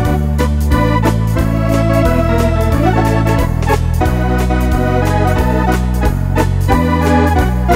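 Wersi electronic organ playing a step-fox tune: chords and melody over a bass line that steps to a new note about every half second, with a steady drum beat from the organ's rhythm accompaniment.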